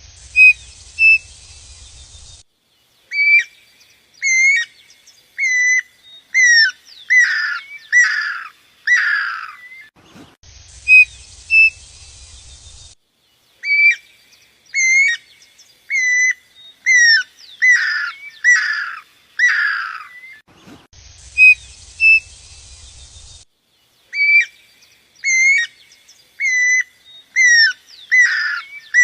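Bird song: a phrase of clear whistled notes that builds into louder sweeping, falling notes. The same phrase repeats three times, about every ten and a half seconds.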